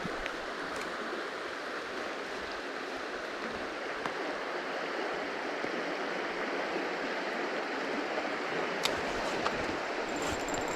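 River water rushing steadily over rocks, with a few faint ticks.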